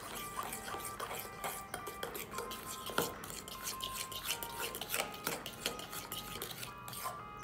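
A utensil stirring thick banana bread batter in a bowl as brown sugar is mixed in, with repeated small clicks and scrapes against the bowl and one sharper knock about three seconds in. Background music plays throughout.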